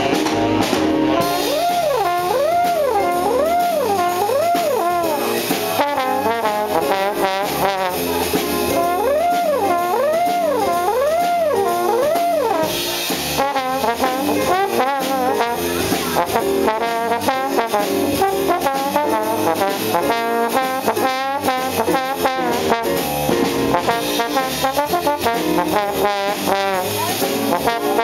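Trombone solo over a jazz sextet. The horn swoops up and down in wide slides through the first half, then moves into quicker runs of shorter notes.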